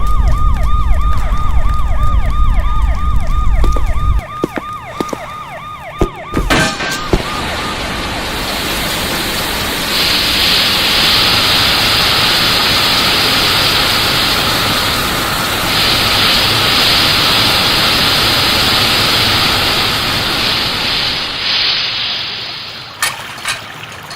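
Synthesised sound-design effects: a warbling, siren-like tone swooping up and down a few times a second over a deep rumble, which stops abruptly about four seconds in. A few sharp knocks follow, then a long, loud rushing noise that fades near the end, where a few more clicks come.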